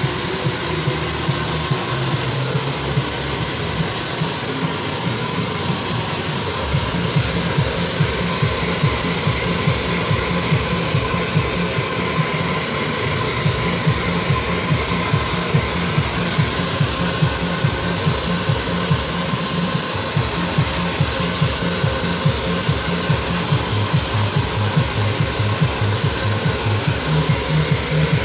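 Handheld hair dryer blowing steadily on wet hair. A regular low beat of about two pulses a second runs underneath from about six seconds in.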